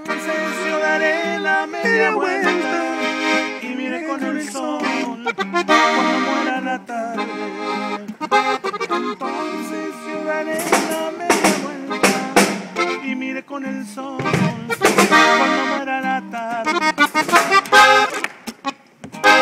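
Norteño band playing live at a sound check, a button accordion carrying the melody over drum hits.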